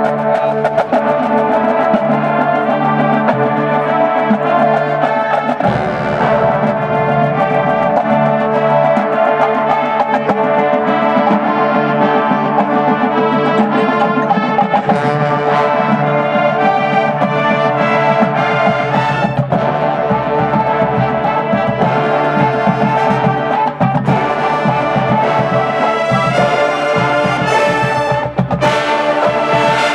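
Marching band brass section, trombones and trumpets, playing loudly in full chords.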